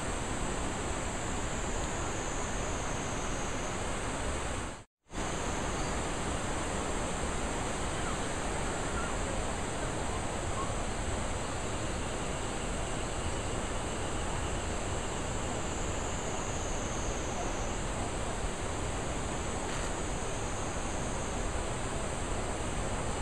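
Steady rush of a mountain river's flowing water, breaking off for a moment about five seconds in.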